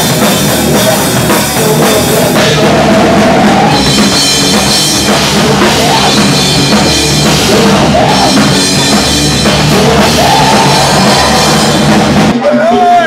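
Live rock band playing loud, with a full drum kit pounding and guitar. Near the end the drums and bass drop out.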